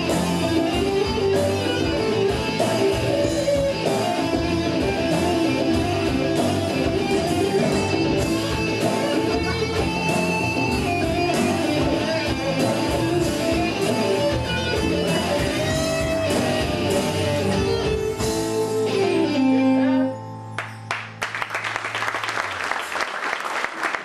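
Live pop-rock song led by electric guitar, ending about 20 seconds in on a held final note after a falling glide. Audience applause starts just after.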